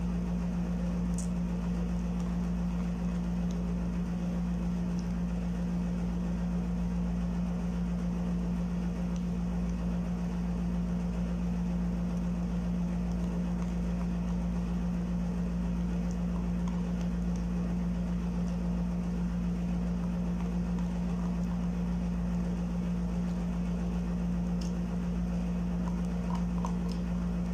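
Air conditioner running with a steady low hum and rushing noise. A few faint clicks of a plastic spoon against a plastic cup.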